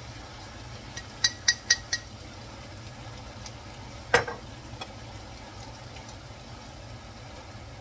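Jar of spaghetti sauce knocked four times in quick succession against the pan as the sauce is shaken out, then one louder knock a couple of seconds later, over a steady hiss from the pans cooking on the stove.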